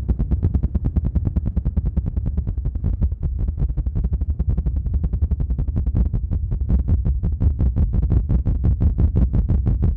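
Fast, even fluttering pulses on a close microphone, heavy at the low end: the ASMR 'helicopter' ear trigger.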